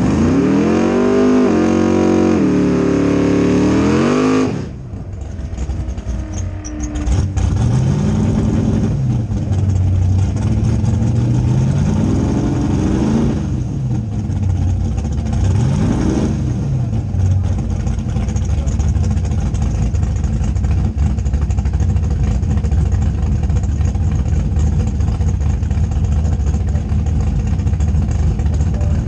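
Drag car engine revved hard in rising and falling sweeps for about four seconds, then dropping suddenly back to a rumbling idle with a few short throttle blips, and idling steadily after that.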